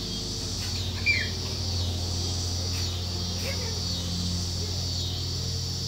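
Outdoor evening ambience: a steady high insect drone over a low steady hum, with a short high descending chirp about a second in and a fainter one about three and a half seconds in.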